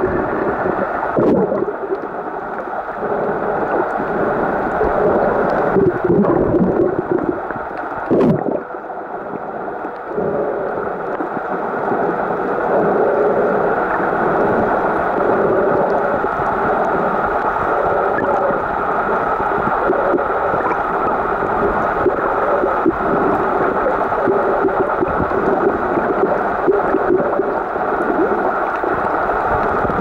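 Muffled underwater noise from a camera held below the surface: a steady rushing hum of water with a few sharp clicks and knocks against the housing.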